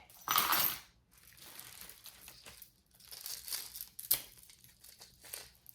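Packaging crinkling and rustling as jewelry pieces are unwrapped and handled, loudest in the first second, with a sharp click about four seconds in.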